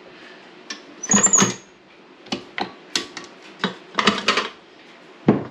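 Irregular sharp knocks and clicks of kitchen utensils and a mixing bowl being handled while bread dough is worked, about a dozen in all, with a brief high scrape about a second in and a louder knock near the end.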